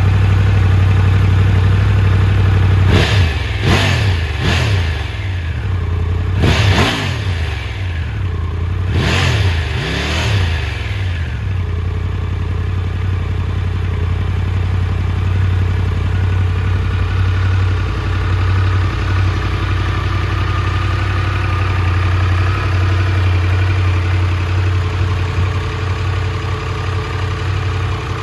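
Triumph Tiger 1200's inline-three engine running through an aftermarket Arrow slip-on exhaust, with a deep growl: about six quick throttle blips, each rising and falling in pitch, in the first dozen seconds, then steady idling.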